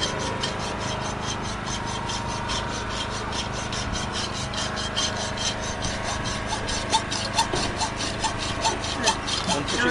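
Hacksaw sawing metal in quick, even back-and-forth strokes, about five a second, as a machine's gear housing is cut through.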